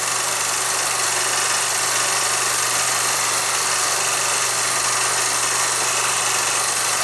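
Steady hiss with a constant low hum, the background noise of an old film soundtrack played back.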